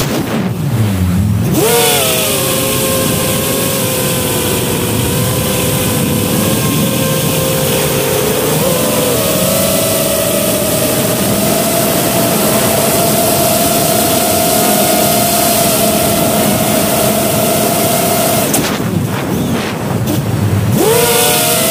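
Brushless motors and propellers of a 5-inch FPV freestyle quadcopter, heard from its onboard camera: a steady whine over rushing air. The whine drops as the throttle is chopped at the start, climbs back and holds, then drops away again near the end before rising once more.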